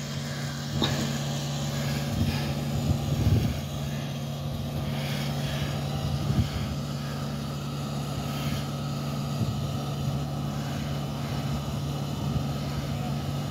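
A large engine idling steadily, with a few short knocks, the loudest about three seconds in.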